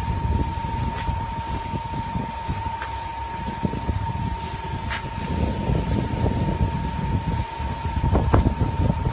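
Pan-type forced concrete mixer running: a low, uneven rumble from the drum, driven by its gear ring, under a steady high whine, with a few light clicks.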